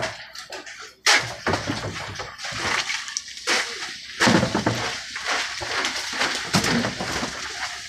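Plastic tubs knocking and scraping on a boat deck and fish-hold rim as fish are handled, with a sharp knock about a second in.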